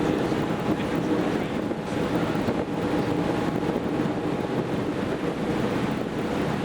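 Tour boat's engine running with a steady drone, mixed with wind and water noise and wind buffeting the microphone.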